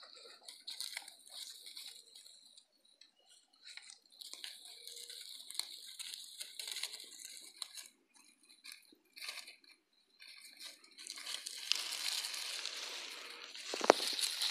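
Dry leaf litter rustling and crackling in scattered short bursts as a nine-banded armadillo roots and shuffles through it, turning to a steadier, louder rustle for the last few seconds, with a sharp crunch near the end.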